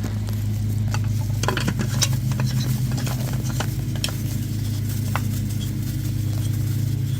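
Rag wiping and handling around an oil filter housing: scattered small clicks, taps and rubbing, most of them in the first five seconds, over a steady low mechanical hum in the background.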